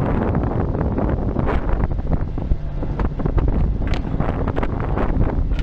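Wind buffeting the microphone in steady gusts on an open fishing boat at sea.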